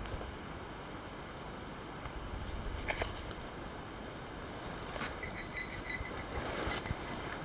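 Night insects, crickets, chirring in a steady high-pitched chorus, with a few faint clicks and a short run of quick chirps about five seconds in.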